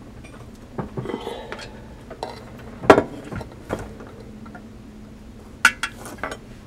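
Metallic clinks and knocks as a soprano saxophone body is handled and turned over on a workbench, with scattered clicks and one louder knock about three seconds in and a quick cluster near the end.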